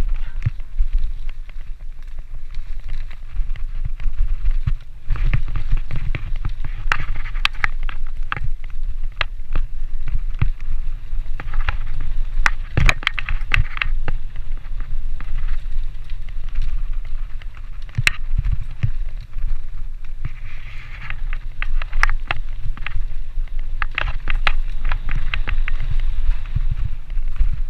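Off-road enduro motorcycle ridden along a bumpy forest trail: a steady low engine rumble, with frequent sharp knocks and rattles as it goes over roots and bumps.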